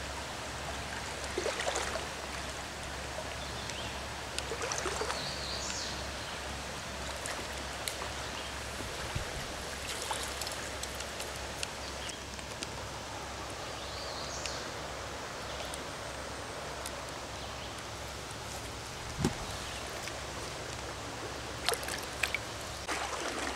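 Steady rush of a riffled trout stream flowing past a wader standing in it. A few short splashes near the end as a fish is released by hand into the water.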